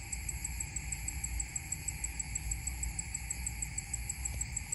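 Insects calling, likely crickets: a high chirp repeats evenly about five times a second over a steady high buzz, with a low rumble underneath.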